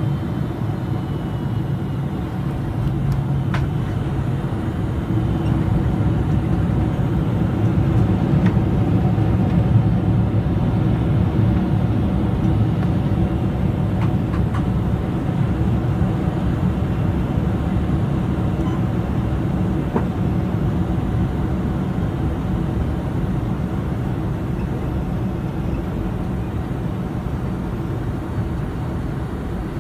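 Boeing 747-400 heard from the cabin over the wing during the landing rollout: engines in reverse thrust and the rumble of the rolling jet. The noise swells to a peak about ten seconds in, then slowly fades as the aircraft slows, with a few faint clicks and rattles.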